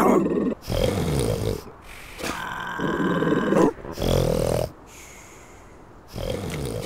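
A cartoon seal snoring: a rattling snore breathing in, then a lower grunting breath out. The cycle repeats twice, pauses, and starts again near the end.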